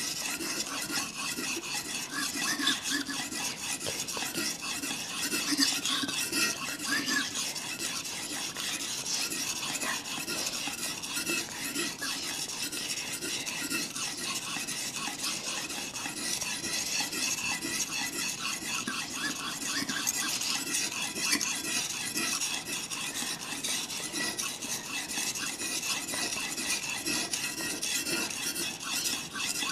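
Steel kitchen knife blade stroked back and forth on a water-soaked whetstone: a steady wet scraping, stroke after stroke, as the dull edge is sharpened.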